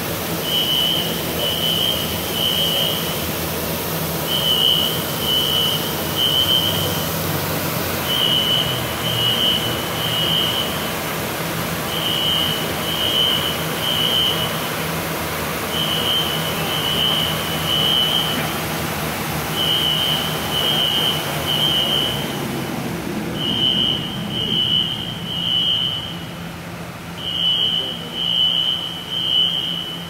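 Fire alarm sounding the three-pulse temporal evacuation pattern, a high beep in groups of three every few seconds, over the steady rush of high-expansion foam generators discharging. The hiss thins out about three quarters of the way through.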